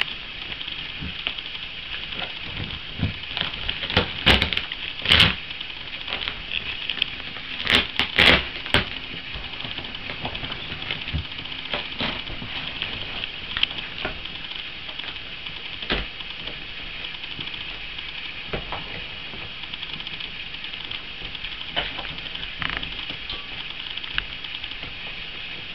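Staffordshire bull terrier mother and puppies play-fighting: soft scuffling over a steady hiss, with a few short sharp sounds around four to five seconds in, again near eight seconds, and once more near sixteen seconds.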